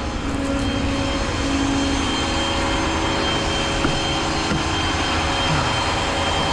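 Steady engine and road noise of a tow truck on the move.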